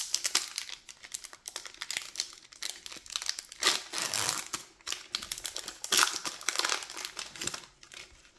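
A foil-lined Magic: The Gathering collector booster pack being torn open by hand, its wrapper crinkling and crackling in irregular bursts, loudest about four and six seconds in.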